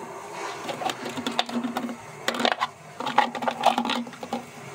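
Irregular run of light clicks and taps from small hard objects, with a low steady hum through the middle of it.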